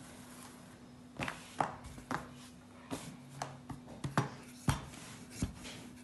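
Wooden rolling pin rolling out a thin sheet of pastry on a counter, with a series of soft knocks about every half second.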